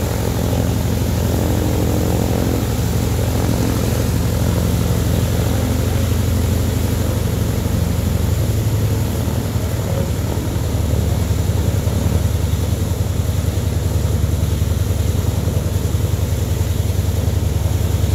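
Douglas A-1 Skyraider's Wright R-3350 18-cylinder radial engine running at low power as the plane taxis: a steady, low, rapidly pulsing throb with its propeller turning.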